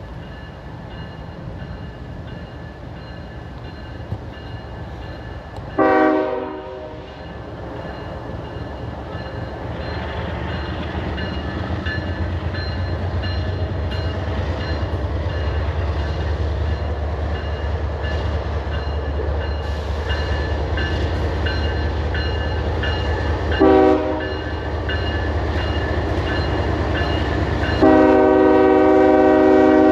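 Diesel freight locomotive approaching, its engine rumble growing louder, with its multi-tone air horn sounding three times: a short blast about six seconds in, another short one later, and a longer blast near the end.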